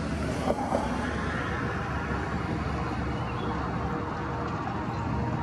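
Union Pacific diesel locomotives rolling past in a light-engine move: a steady low engine drone with wheel and rail noise, and two short knocks about half a second in.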